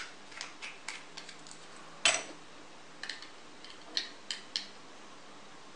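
Parts of a Blast Top spinning top clicking and tapping against each other as it is fitted back together by hand: a scattered series of light clicks, the loudest about two seconds in.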